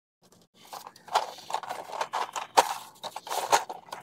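Hands working with wiring and small plastic parts: irregular clicks, taps and rustling that get busier about a second in.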